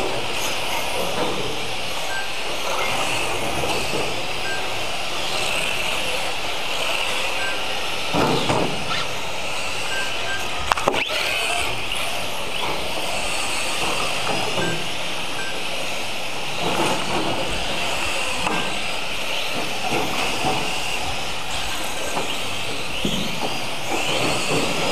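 Several radio-controlled mini cars racing on a carpet track, their motors and gears making a steady whine that rises and falls as they speed up and slow down. A few sharp knocks come about a third of the way in and again near the middle.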